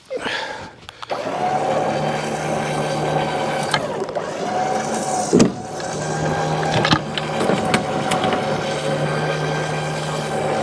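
An engine starting up, then running at a steady speed with a few knocks over it.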